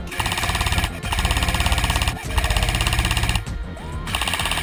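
Airsoft rifle firing full-auto in bursts of about a second each, a fast, even rattle of shots. There are three bursts back to back, then a brief pause, then a fourth near the end.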